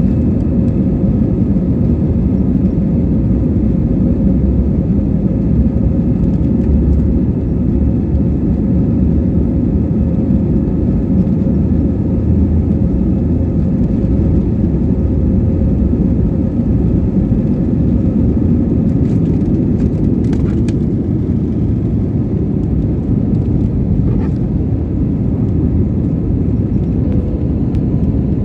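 Jet airliner engines at takeoff thrust, heard from inside the cabin over the wing: a loud, steady low rumble through the takeoff roll and the lift-off into the climb.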